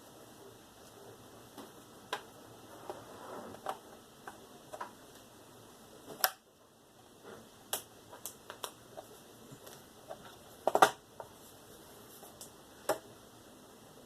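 Scattered clicks and taps of a laptop's plastic parts being handled and pried at, with a louder cluster of clicks about eleven seconds in.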